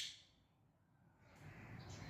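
Near silence in a pause between the squawks of a green Indian ringneck parakeet: the end of one squawk fades away at the very start, and faint sound returns near the end.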